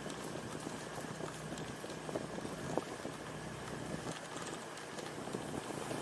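Motorcycle riding along a street: a low steady engine hum under road and wind noise, with frequent irregular small knocks and rattles.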